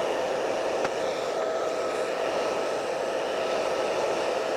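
Hair dryer blowing steadily with a faint whine, warming the iPad's adhesive so the screen can be pried loose.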